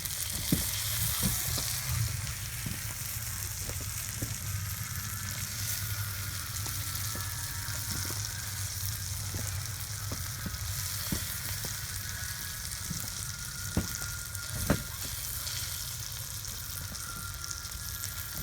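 Flour-dusted perch fillets sizzling in hot oil in a frying pan, a steady hiss. A few sharp taps sound over it, two louder ones about three-quarters of the way through.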